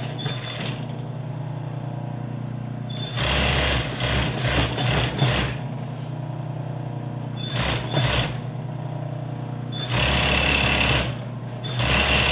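Industrial sewing machine stitching in short bursts, about five runs with pauses between as the fabric is repositioned, over a steady low hum.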